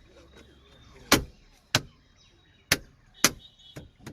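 Five sharp knocks at uneven intervals, from half a second to a second apart, the loudest about a second in.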